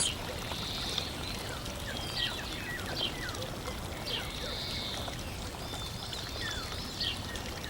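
Small birds chirping, with scattered short falling calls and a few trills, over a steady hiss like flowing water.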